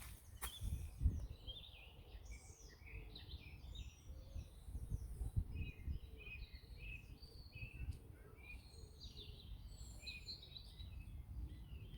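Several small songbirds chirping and singing in short, high, overlapping phrases, over a low rumble with a thump about a second in.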